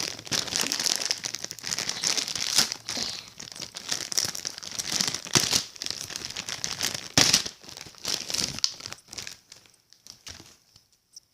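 Toy packaging being handled and torn open, a dense run of crinkling and tearing with sharp crackles that thins out over the last couple of seconds.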